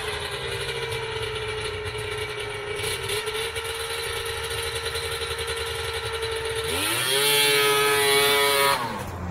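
Polaris Indy 650 snowmobile's piped three-cylinder two-stroke engine running steadily at low revs; about seven seconds in the throttle is snapped open and the engine revs up sharply, crisp with no bog, then drops off again near the end as the throttle is let go.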